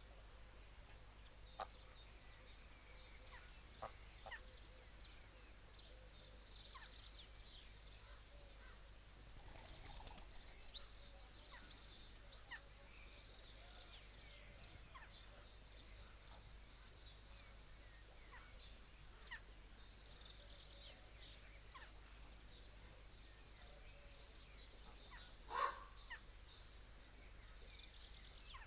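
Quiet rural ambience with scattered faint bird calls and chirps, and one brief, louder fowl call near the end.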